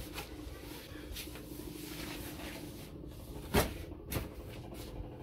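Foam-wrapped monitor panel being lifted out of its cardboard box, the wrapping and cardboard rustling and scraping, with two sharp knocks about three and a half and four seconds in, the first the loudest.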